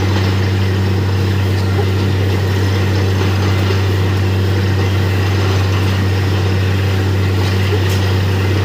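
Truck-mounted borewell drilling rig running steadily with a loud, even low drone, while muddy water and cuttings are blown up out of the borehole and splash out around the casing.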